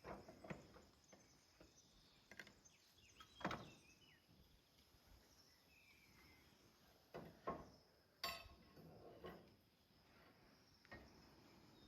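A few faint scattered knocks and clicks, the clearest about three and a half seconds in and a cluster around seven to eight seconds, over a faint steady high chirring of insects.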